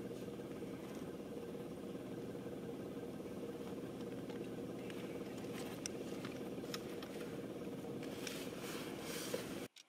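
Vehicle engine idling steadily, with a few faint clicks. The sound cuts off suddenly near the end.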